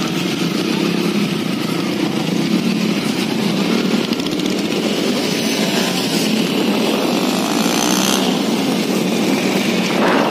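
Motorcycle engine running steadily at road speed, with a continuous rushing noise over it.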